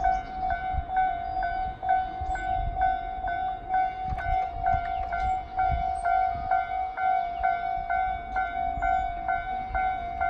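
Japanese railway level-crossing warning bell ringing steadily, about two strokes a second, over a low uneven rumble.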